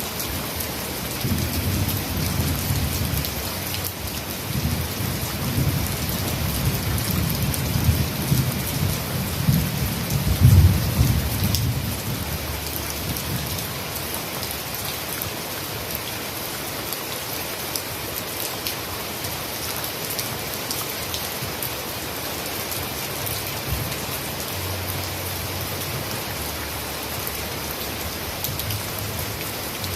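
Steady heavy rain with a long, low rumble of thunder that starts about a second in, is loudest around ten seconds and dies away by about thirteen seconds.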